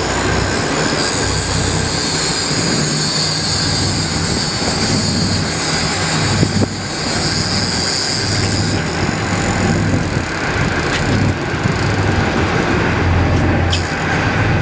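Loud, steady wind and sea noise with a boat engine humming underneath, and a high steady whine over it that fades out about nine seconds in, while a big-game rod and reel is bent into a hooked fish.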